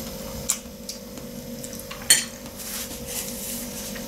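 A metal fork clinking against a ceramic plate of noodles, two sharp clinks about half a second and two seconds in, the second the loudest, with fainter scraping after.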